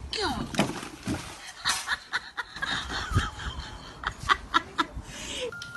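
People's voices and laughter, with several sharp clicks or smacks near the end.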